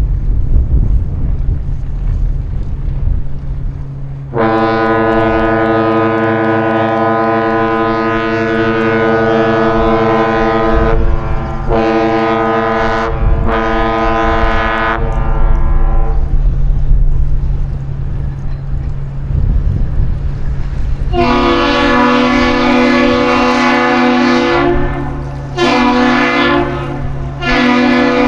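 The great lakes freighter H. Lee White's horn and the Duluth Aerial Lift Bridge's horn exchange the captain's salute, one long blast and two short blasts each. The first horn gives its salute, and about five seconds after it ends a second horn, slightly different in pitch, answers with the same pattern. A steady low hum and wind rumble run underneath.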